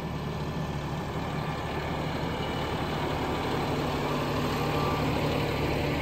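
A John Deere utility tractor's diesel engine running steadily with an even low hum as the tractor drives, slowly growing a little louder.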